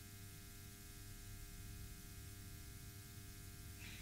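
Near silence: a steady low electrical hum and hiss of room tone, with a faint brief rustle near the end.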